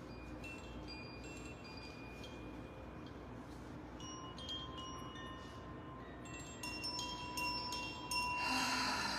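Chimes tinkling: many light, high ringing tones at different pitches struck at irregular moments, growing busier near the end, with a brief rush of noise shortly before the end.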